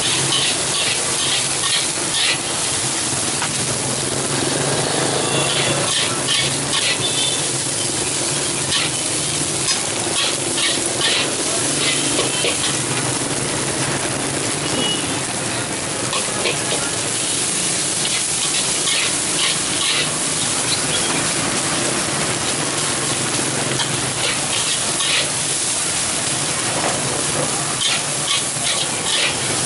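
Egg fried rice sizzling in a large steel wok while a long metal spatula scrapes and clanks against the wok in quick runs of strokes, over a steady hiss.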